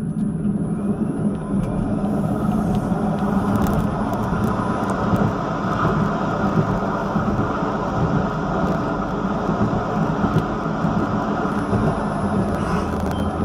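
Vityaz-M low-floor tram running along its tracks: a steady rumble of wheels on rail and running gear, heard from inside the front of the tram.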